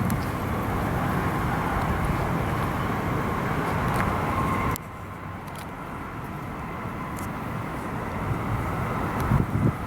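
Meitetsu electric train running past on the tracks, with a brief high whine just before its noise drops off suddenly a little before halfway; a low rumble then slowly builds again.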